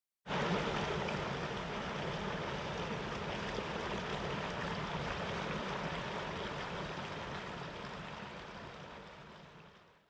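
Steady rushing water of a mountain stream or waterfall, fading out over the last few seconds.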